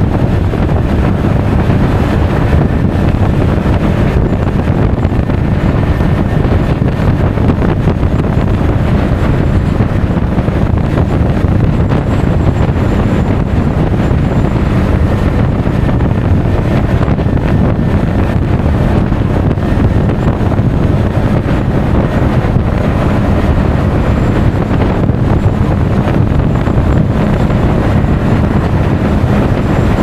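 Wind buffeting an action camera's microphone on a moving Honda Forza 350 scooter: a loud, steady rush of wind noise with the scooter's riding noise beneath it.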